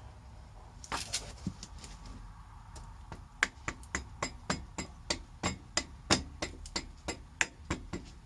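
Hammer blows knocking a part into place during motorcycle rear-suspension reassembly: a few knocks, then a steady run of more than a dozen sharp blows, about three a second.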